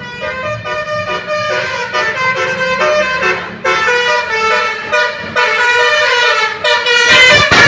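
Telolet basuri bus horn, a set of musical air horns, playing a loud tune of several notes that step up and down, with short breaks between phrases and the loudest blast near the end.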